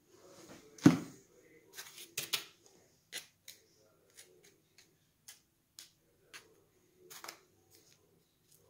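A thin plastic cup of potting soil being handled: a sharp knock about a second in, then scattered light clicks and crackles as the soil is poked with a plastic stick and pressed down by hand.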